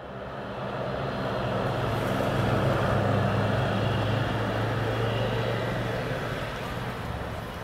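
Dash 8 Q400's twin PW150A turboprop engines and six-blade propellers running as the airliner rolls out on the runway after landing: a steady propeller drone with a low hum. It grows louder for the first two or three seconds, then fades as the aircraft moves away.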